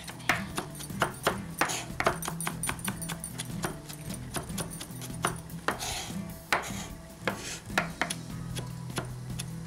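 Chef's knife chopping green chillies finely on a wooden cutting board: quick, irregular knocks of the blade on the wood, several a second, over quiet background music.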